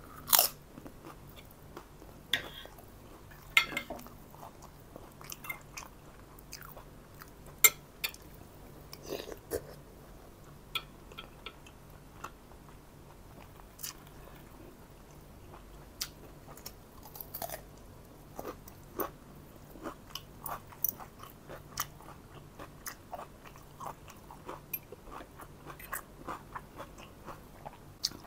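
Close-miked chewing and biting of food, with crunchy bites and scattered short clicks of a spoon and fork against a plate.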